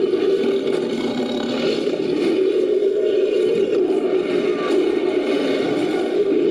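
Layered creature sound effect for a fictional pterosaur: a continuous harsh, rasping drone that holds steady without a break.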